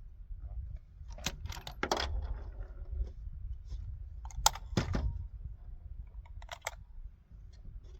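Metallic clicks and clinks of a rifle and its screw-on suppressor being handled, with a few sharp clicks a little after the middle.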